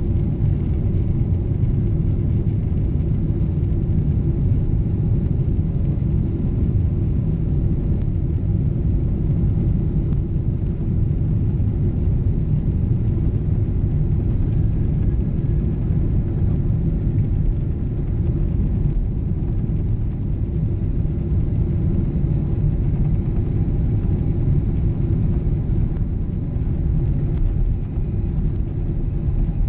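Boeing 777 jet engines heard from inside the cabin: a loud, steady low rumble with a few faint steady hums above it.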